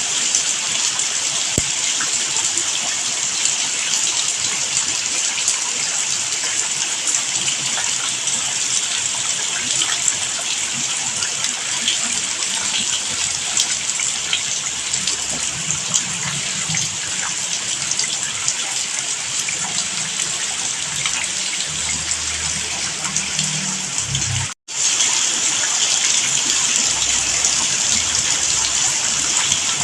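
Steady, heavy rainfall, an even hiss of water with no pauses, cutting out completely for a split second about three-quarters of the way through and then resuming as before.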